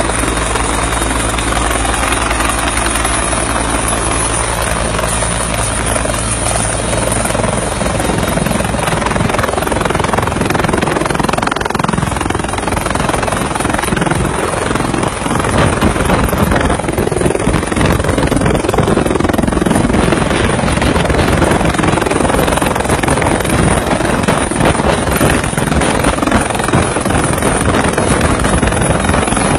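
A helicopter running on the ground with its rotors turning: loud, steady engine and rotor noise. A low hum in the first several seconds gives way after about eight seconds to a rougher rushing sound.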